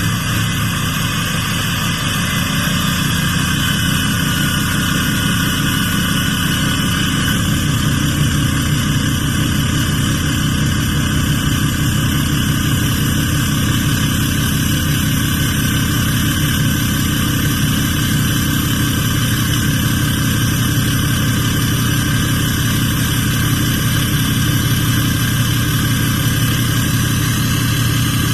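6.7-litre Cummins inline-six turbodiesel of a 2017 dually pickup running steadily at high idle, with a loud, steady turbo whistle above the diesel rumble.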